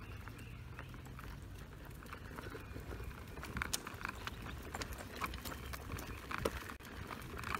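Baby stroller pushed along a rough asphalt street with footsteps: a low steady rumble from the wheels and scattered clicks and taps, which grow busier about halfway through.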